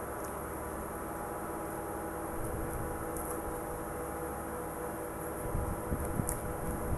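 Steady background hum, with a few faint crackles and soft handling sounds as crispy fried chicken is pulled apart by hand and eaten; the handling gets a little louder near the end.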